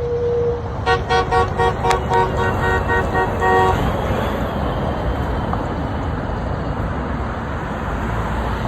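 A car horn honked impatiently in a quick string of short toots starting about a second in, running into a longer blast that stops a little under four seconds in. Steady traffic noise from passing cars runs underneath.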